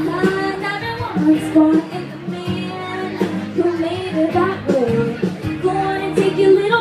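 A woman singing a country song live over instrumental accompaniment, her held notes wavering in pitch.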